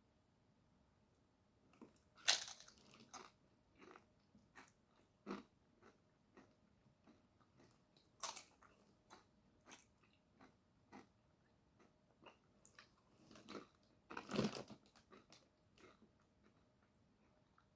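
A person eating close to the microphone: bites and chewing with crunchy mouth sounds, scattered irregularly, the loudest crunches about 2, 8 and 14 seconds in.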